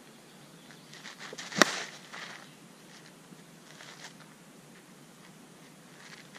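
A single sharp crack of an Easton Bubba Club slowpitch softball bat, end-loaded, hitting a softball off a tee about a second and a half in, with a brief ring after the hit. A few faint scuffs of the batter's feet on dirt come just before it.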